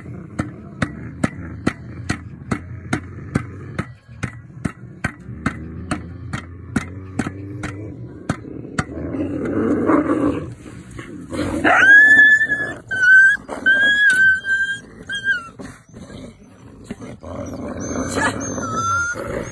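A steel spade blade chopping raw meat on the ground, about two sharp strikes a second, which stop about nine seconds in. Then wolves feeding at the meat growl low and give high, drawn-out whines, the loudest a few seconds after the chopping ends.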